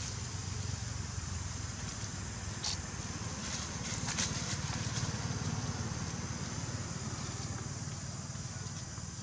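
A steady low rumble under a faint high hiss, with a few short rustles of dry leaves about three and four seconds in.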